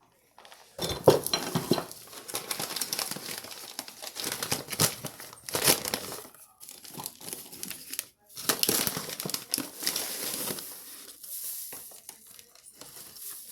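Crinkling and rustling of a bag of white sugar being handled and poured from, in irregular bursts with a brief pause about eight seconds in.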